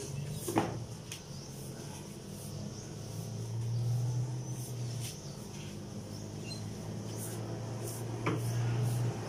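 Broom sweeping a floor in short, irregular strokes, with a couple of light knocks. A steady low hum runs underneath and grows stronger from about three seconds in.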